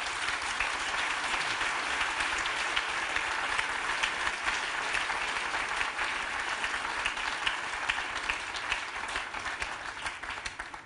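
Audience applauding, a dense steady patter of many hands clapping that thins out and dies away near the end.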